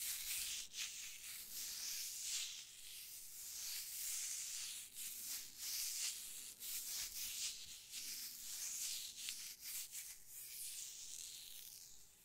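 Crinkly plastic packaging rubbed and crumpled between fingers right against a microphone: a dense, continuous run of sharp crackles over a high hiss.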